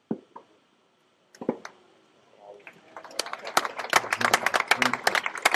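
A few sharp tennis ball strikes, then spectators clapping, building from about three seconds in as the point ends.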